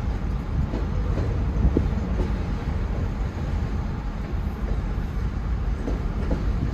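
Freight train cars rolling past over the rails, a steady low rumble of wheels on track, heard from inside a stopped car.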